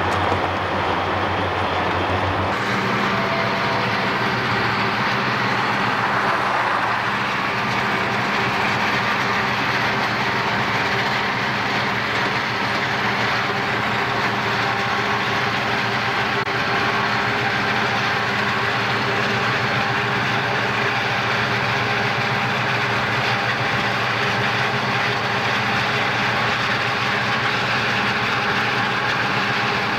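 Southern Pacific freight train's diesel locomotives running steadily, heard from a car driving alongside, mixed with the car's road and wind noise. The sound shifts abruptly about two and a half seconds in.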